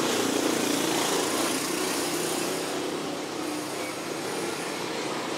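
Steady mechanical running noise: a motor-like hum under a rushing hiss.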